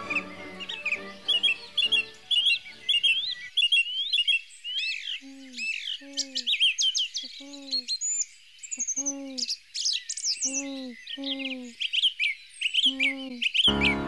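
Many small songbirds chirping and twittering in quick high notes, while soft music fades out over the first few seconds. From about five seconds in, a lower, falling call is repeated about ten times, singly and in pairs, among the chirps.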